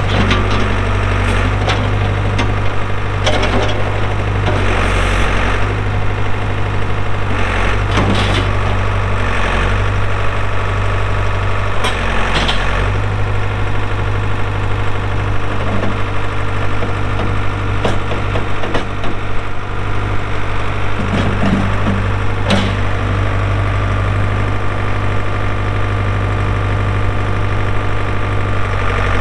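Ford 555D backhoe's diesel engine running steadily under hydraulic work, with scattered sharp knocks and short bursts of noise from the machine being operated.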